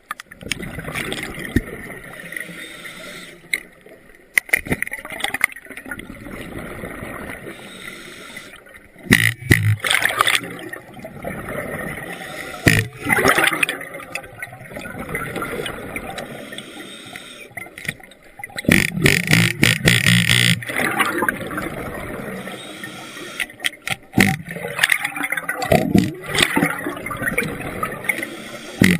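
Underwater noise from a wreck dive: a steady wash broken every few seconds by loud bursts of rushing air bubbles, each lasting a second or two.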